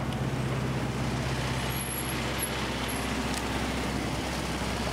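Ice cream truck's engine idling, a steady low hum, over city street noise.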